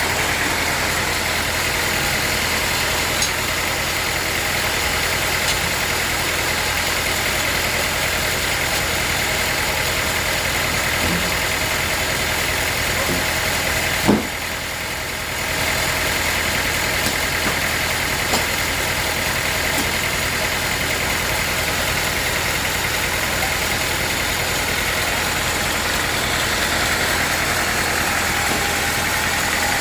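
Sawmill machinery running steadily, a continuous engine-like noise with a steady whine, broken once about halfway through by a sharp click and a short dip before it carries on.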